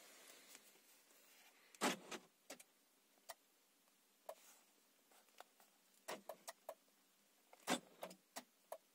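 Nissan Almera N16's central door-lock actuators clunking as the newly programmed remote key locks and unlocks the doors, a sign the remote now works. There are two louder clunks, about two seconds in and near the end, among a series of lighter clicks.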